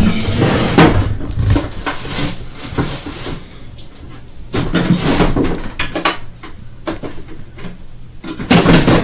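Kitchen clatter: food containers and other items knocked, shifted and set down while rummaging for food, with a busy run of knocks in the first few seconds, more around the middle and a louder knock near the end.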